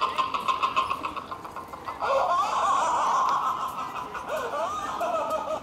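Killer-clown laugh sound effect played from a small portable speaker: rapid cackling, then a louder, drawn-out laugh with swooping pitch from about two seconds in.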